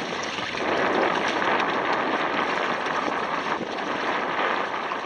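Steady rushing noise of a double canoe sailing, with water washing along the hulls and wind across the microphone.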